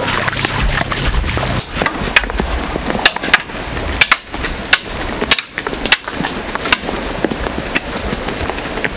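Donkey's hooves clopping and scuffing on a stony dirt track at a walk: a run of irregular sharp knocks over a gritty rustle.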